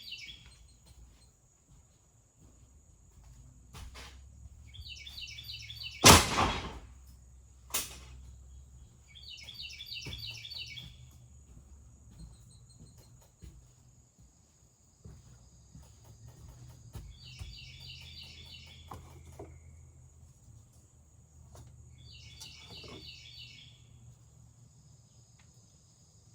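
A songbird repeats a short phrase of quick chirps every four to five seconds. A single sharp knock comes about six seconds in, with a lighter click shortly after.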